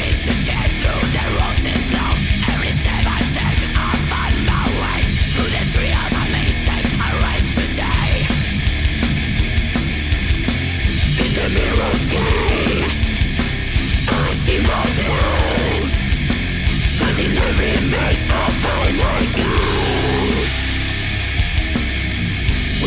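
Heavy metal music with a steady drum beat.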